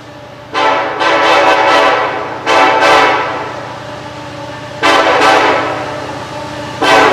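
A Canadian National SD70M-2 locomotive's Nathan K5LLA five-chime air horn sounding four blasts: a long one about half a second in, a shorter one about two and a half seconds in, another near five seconds and a last near the end. Each chord fades slowly between blasts, over a steady low rumble.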